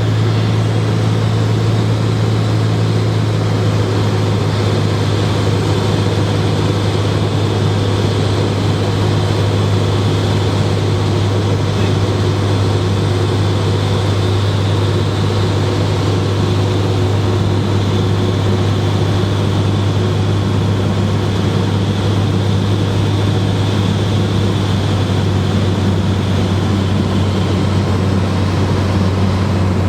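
Cessna 210 Centurion's six-cylinder piston engine and propeller running, a loud, steady low drone whose tone shifts slightly about twenty seconds in.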